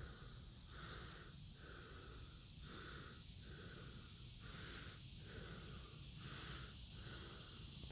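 A person breathing heavily and evenly through the nose and mouth, close to the microphone, in a steady in-and-out rhythm about once every second and a half.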